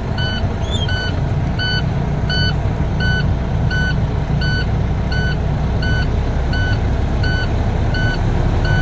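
International ProStar's diesel engine idling just after start-up, heard from inside the cab, while a dashboard warning buzzer beeps steadily at about three short beeps every two seconds.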